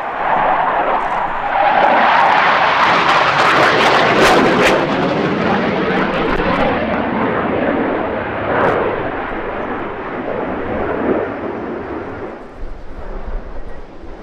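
Leonardo T-346A jet trainer's twin Honeywell F124 turbofan engines, a loud jet roar passing overhead. It is loudest about four seconds in, with a few sharp crackles, then fades over the last few seconds as the jet draws away.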